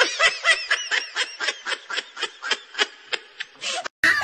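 High-pitched laughter, a rapid unbroken string of cackling "ha"s at about seven a second, which cuts off near the end.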